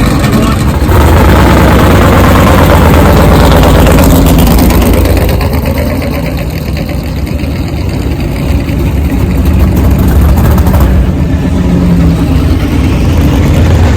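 A loud engine running with a heavy, rough rumble. It eases a little about five seconds in and builds back up from about ten seconds in.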